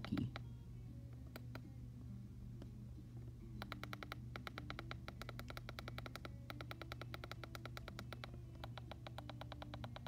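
Faint, fast ticking from a Midland weather alert radio as its arrow button is held to scroll through the county list, several ticks a second from about three and a half seconds in, with brief breaks twice. A steady low hum sits underneath.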